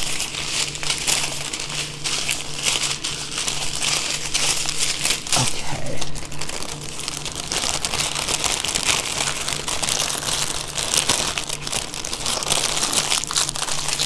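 Small plastic bags of diamond-painting rhinestone drills being handled: a continuous crinkling and rustling of the plastic with many sharp crackles.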